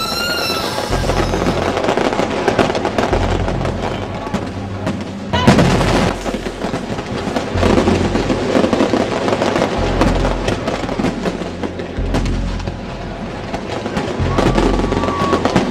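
Fireworks crackling and bursting, loudest about five and a half seconds in, over music with a slow pulsing bass line. A man screams at the very start.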